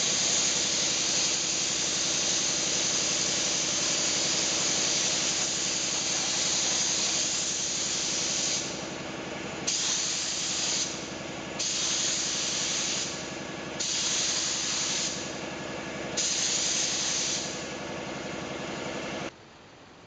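Paint spray gun hissing as topside paint is sprayed onto an inflatable boat. It is steady at first, then comes in four short passes of about a second each with brief gaps as the trigger is released. A motor hums steadily underneath, and all of it cuts off near the end.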